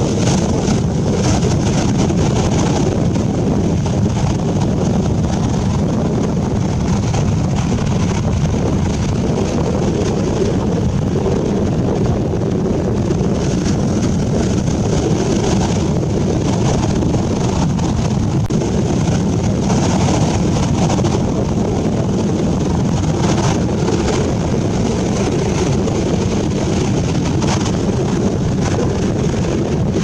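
Ocean surf breaking and washing up a sandy beach as a steady rush of water, with wind buffeting the microphone.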